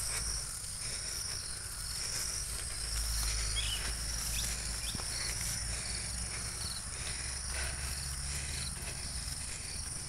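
Field insects chirring steadily in high-pitched, pulsing trills, over a low rumble.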